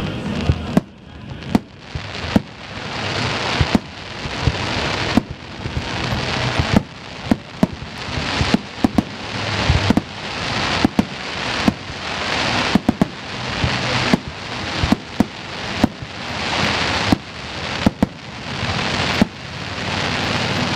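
Aerial fireworks shells bursting one after another, a sharp bang about once a second, each followed by a building hiss and crackle of the glittering stars.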